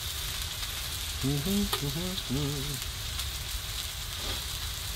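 Steak sizzling in a frying pan on a wood stove, a steady hiss. A low voice makes a few short murmured sounds about a second and a half in.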